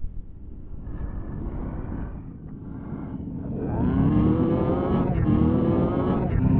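Heavily distorted, effects-processed soundtrack audio: a low rumble, then about halfway in a loud pitched sound whose tones bend and rise, engine-like.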